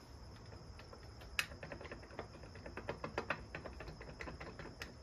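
Faint, irregular light clicks and ticks from hands working on a Stihl MS200T chainsaw during a crankcase vacuum test, with one sharper click about one and a half seconds in.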